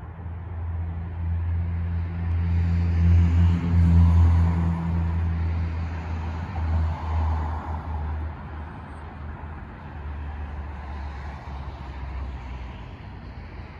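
A car passing along the street: low engine hum and tyre noise grow louder, peak about four seconds in, then fade away.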